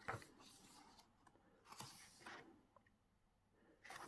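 Faint rustling of photo book pages being handled and turned: a few soft, brief swishes with near silence between them.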